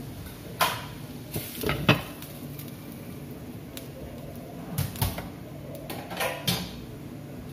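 Cookware clatter as a glass lid is set on a cooking pot: a series of sharp knocks and clinks, the loudest about two seconds in, with a few more later on.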